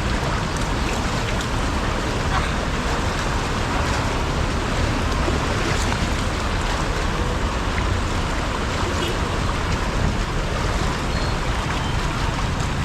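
Floodwater rushing and sloshing as vehicles drive through a flooded street, pushing up waves. A steady, continuous noise with a strong low rumble.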